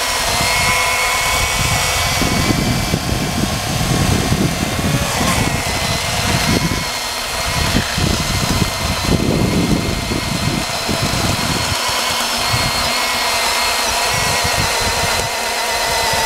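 Small battery-powered electric chainsaw running steadily with its motor's whine as the chain cuts through a log, with rougher cutting noise through the middle of the cut.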